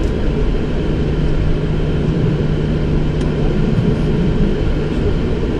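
Steady cockpit noise of a Boeing 737-700 taxiing after landing: engines at idle and rushing air, with a low steady hum through most of it.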